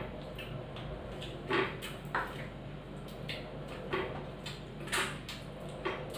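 Eating by hand from plates at a table: irregular light clicks and taps of fingers and dishes, about ten in all, over a steady low hum.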